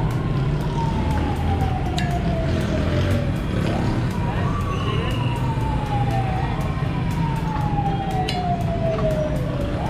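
A siren wailing in a repeating cycle: each wail jumps quickly up in pitch and then slides slowly down over about three seconds. Steady low street rumble runs beneath it, and a couple of sharp metallic clicks come through.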